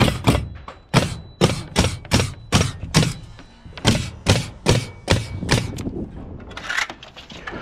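Pneumatic framing nailer firing nails through plywood sheathing: a quick run of sharp shots, about three a second, with a short break about halfway and a stop shortly before the end.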